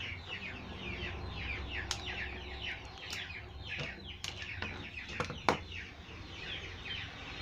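Background birds chirping in a fast, steady string of short, falling chirps, several a second, with a few sharp clicks now and then.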